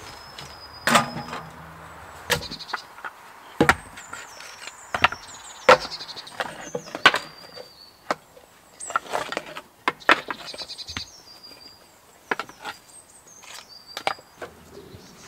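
Firewood being chopped or split by hand: about ten sharp wooden knocks and cracks at irregular intervals, some coming in quick pairs.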